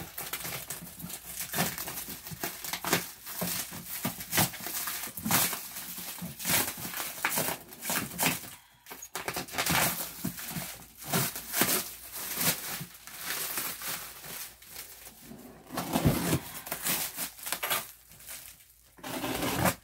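Plastic stretch wrap crinkling and tearing as it is pulled and unwound off a cardboard box, in irregular crackling bursts, with a thump about three-quarters of the way through.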